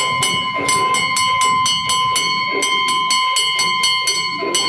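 Bells ringing rapidly and rhythmically, about four to five strikes a second, over steady ringing tones.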